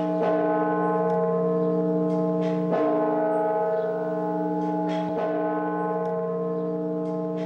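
Slow, solemn tolling bell, struck about every two and a half seconds over a sustained held chord, as in a mournful musical score.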